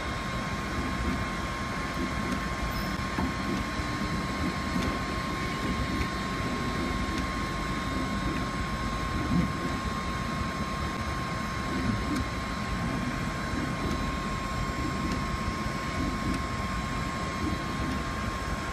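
Steady machine hum and rush of an automatic soldering robot's workstation, with a constant high-pitched whine running through it.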